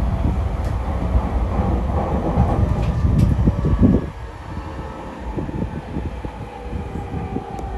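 Running noise inside the motor car (MoHa E230) of a JR East E231 series 0 commuter train, which has Mitsubishi IGBT-VVVF traction equipment, travelling at speed. A loud rail rumble carries a faint steady whine above it, and the whole sound drops markedly about four seconds in.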